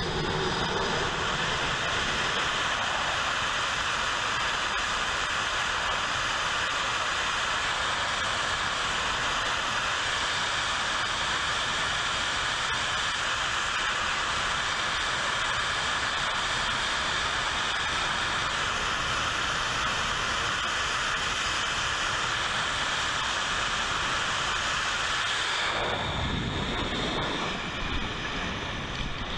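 Twin turbofan engines of an F/A-18F Super Hornet running at high power on the carrier catapult: a steady, loud jet roar and hiss. About 26 seconds in, the high hiss drops away abruptly as the catapult fires and the jet leaves the deck, leaving a low rush.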